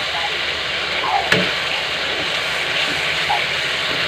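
Thick gravy sizzling in a frying pan over a gas flame, a steady hiss, while a metal spatula stirs it, knocking against the pan once just over a second in.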